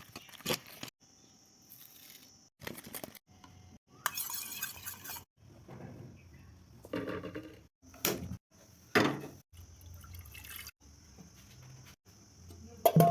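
Kitchen sounds in a series of short edited cuts: liquid pouring and dripping, with several sharp knocks and clinks, the loudest near the end.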